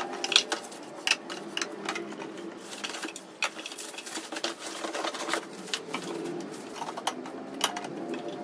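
Clear plastic airtight storage containers being unpacked and set down on a counter: a string of light plastic clicks and knocks at irregular intervals, with rustling of plastic wrapping.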